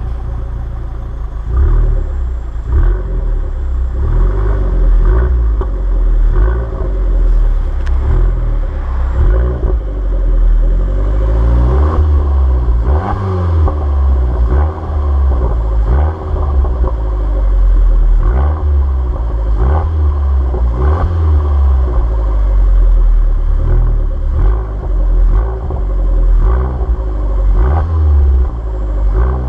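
Alfa Romeo MiTo 1.4 TB turbocharged four-cylinder petrol engine, warmed up, revved again and again through its stock exhaust, the pitch rising and falling every second or two.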